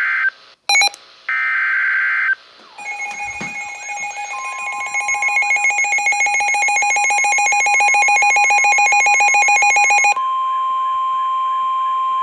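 Emergency Alert System warning over NOAA Weather Radio. It opens with the screechy digital header data bursts, then a rapidly pulsing alarm beep sounds, and the steady 1050 Hz warning tone comes in under it. The tone carries on alone once the pulsing stops about ten seconds in.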